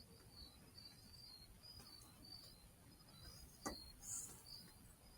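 Faint insects chirping, a high note pulsing in a steady rhythm, with a single click about three and a half seconds in.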